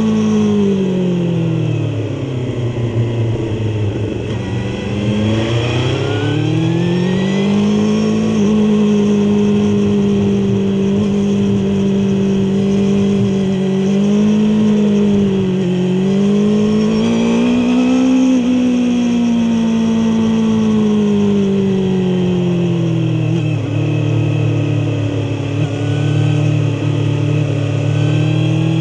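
Suzuki GSX-R 750 K5's inline-four engine heard from on board at speed. The revs fall as it slows, climb from about five seconds in, hold fairly steady with small dips, fall again past the twenty-second mark and climb once more near the end.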